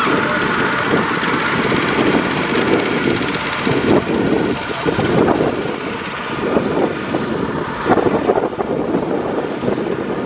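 Kubota two-wheel walking tractor's single-cylinder diesel engine running steadily under load as it pulls a trailer heavily loaded with rice sacks across a field.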